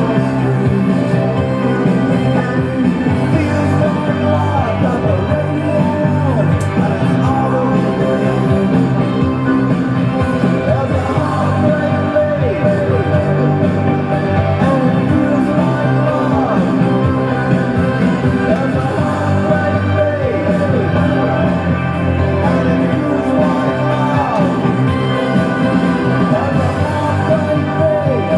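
Background music: a rock song with singing, at a steady level.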